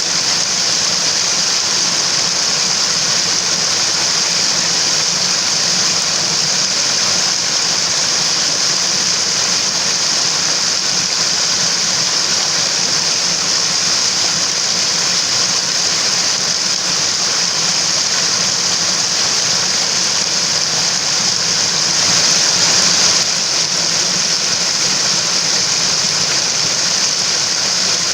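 Mountain water rushing steadily, a constant loud rush with a brief slight swell about 22 seconds in.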